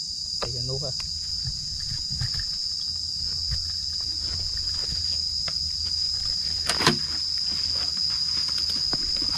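Steady, high-pitched drone of insects, with a brief crackle about seven seconds in.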